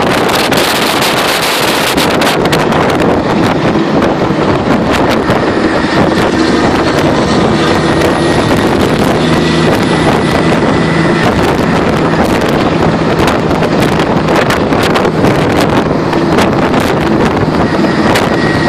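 Loud, steady wind rushing over the microphone from riding in the open back of a moving cattle truck, over a low drone of the truck's engine and tyres.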